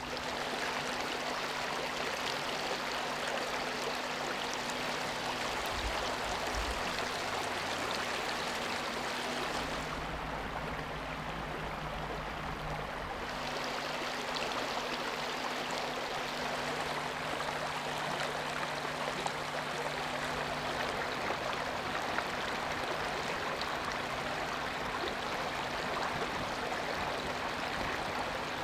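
Shallow stream running over stones, a steady, even rush of water.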